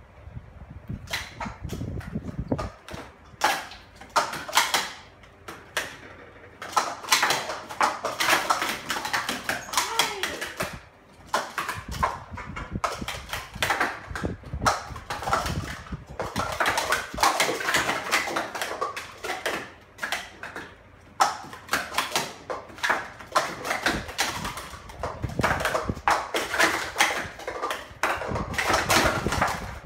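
Plastic sport-stacking cups clattering as they are rapidly stacked up into pyramids and brought back down, a fast run of light clicks and knocks with short pauses every few seconds.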